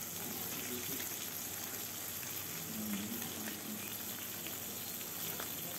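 Pomfret pieces shallow-frying in hot oil in a kadai: a steady sizzle with a few faint crackles.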